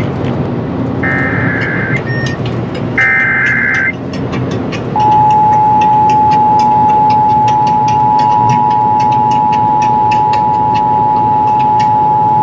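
Emergency Alert System SAME header: two roughly one-second bursts of high warbling data tones, then about five seconds in the steady two-tone EAS attention signal starts and holds. It announces a new National Weather Service severe thunderstorm warning. A steady low background noise runs underneath.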